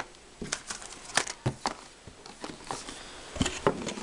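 Cardboard box and paper packaging being handled: soft rustling with a scatter of light taps and knocks at irregular times as the contents are put back and the box flaps are folded shut.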